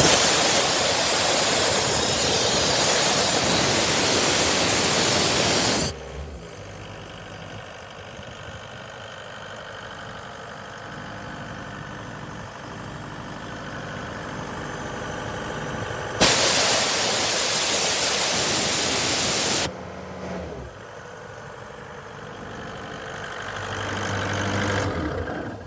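Atlas Copco portable air compressor running on its John Deere diesel engine, with compressed air rushing out through the service valve and hose in two loud hissing bursts that start and stop abruptly: one of about six seconds at the start, another of about three and a half seconds in the middle. Between and after the bursts the engine is heard running steadily, growing louder near the end.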